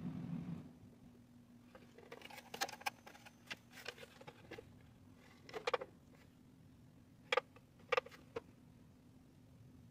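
A nail lamp's low hum cuts off about half a second in. Then come scattered small rustles and clicks of handling a tissue and the lamp, with two sharper clicks near the end.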